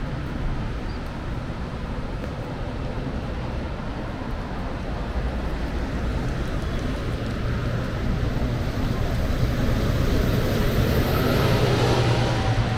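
Street traffic noise: a motor vehicle's engine and tyres grow louder as it approaches and passes near the end, with a faint high whine that falls in pitch as it goes by.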